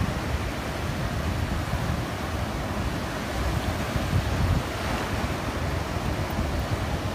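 Ocean surf breaking and washing in over the shallows, a steady rushing hiss, with wind buffeting the microphone in a low, fluttering rumble.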